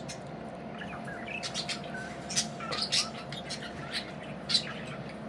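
Budgerigars chirping in short, scattered chirps over a steady faint hum.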